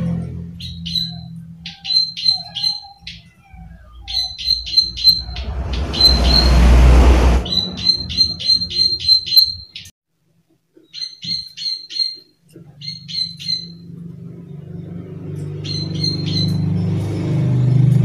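Plain prinia (prenjak sawah) giving its dry 'klik klik' call: sharp high clicks in runs of about three to four a second, broken by short pauses. A loud burst of rushing noise comes about six seconds in and lasts a second and a half.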